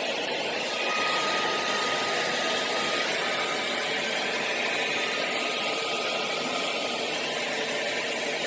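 Vacuum cleaner running steadily, a continuous rush of air with a faint whine from the motor.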